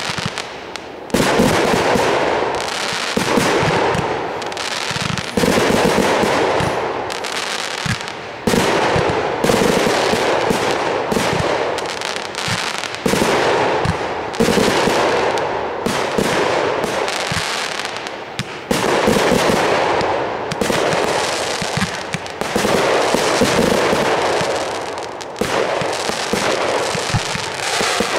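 Fireworks display: aerial shells and comets launching and bursting in rapid succession. There is a dense, unbroken clatter of reports, with a fresh loud volley every second or two.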